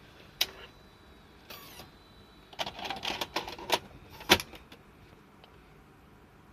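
Scattered mechanical clicks and rattles from a Victor HR-S10 portable video cassette recorder being handled and operated: a click, a short swish, a run of small clicks and clatter, then one sharp click about four seconds in.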